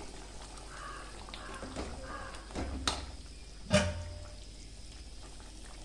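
Thick ground coconut and poppy-seed paste being tipped from a container into a pot of curry, with soft wet pouring sounds. Two sharp metal knocks from the ladle come about three and four seconds in.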